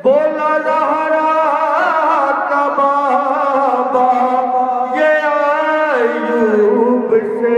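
Solo male voice singing a devotional Urdu/Punjabi kalam in long held, ornamented notes, with a new phrase starting about five seconds in.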